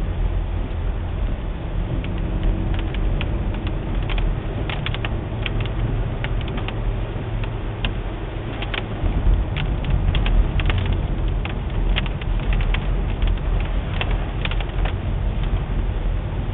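Steady low road and engine rumble of a moving car, heard from inside the cabin, with frequent small sharp clicks from about two seconds in.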